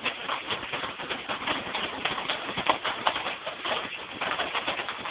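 Popcorn kernels popping: a quick, irregular patter of sharp pops, many each second.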